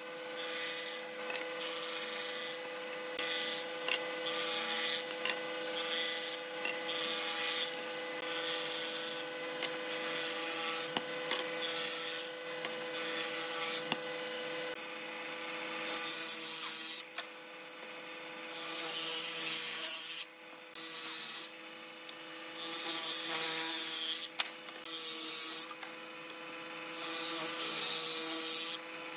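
A hand tool worked back and forth on wood, scraping in repeated strokes about once a second, with a few longer strokes near the end. A steady hum runs underneath.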